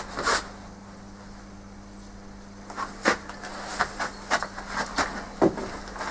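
Steady low electrical hum of woodturning workshop machinery, with a knock about half a second in and then a run of sharp clicks and knocks from tools and the lathe being handled.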